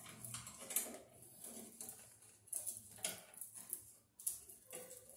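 White and bare copper ground wires of a 14-2 cable being pushed behind the breakers of a metal panel box, scraping and tapping against the steel and the breakers in light, irregular clicks and rustles.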